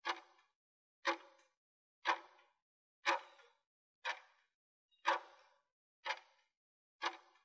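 Countdown timer sound effect ticking once a second, eight sharp ticks each with a short ringing tail, marking the seconds left to answer a quiz question.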